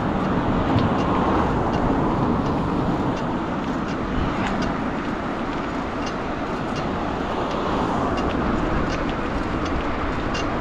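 Steady noise of a bicycle ride beside a road: wind rushing on the microphone and tyres on asphalt, with passing car traffic and light clicks and rattles scattered throughout.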